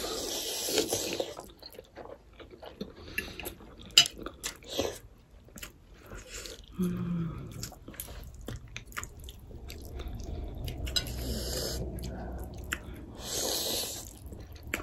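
People slurping and chewing instant ramen noodles, with a long slurp at the start and another near the end, and scattered sharp clicks in between.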